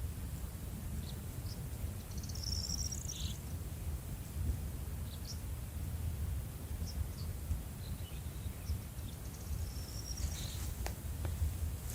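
Outdoor nature ambience: a steady low rumble with scattered short, high chirps, and a single faint click near the end.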